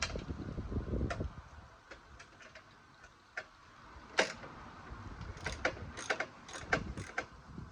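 Hand tools working on the engine mount's bolts: irregular metallic clicks and clinks, with a run of sharp ringing ticks in the second half.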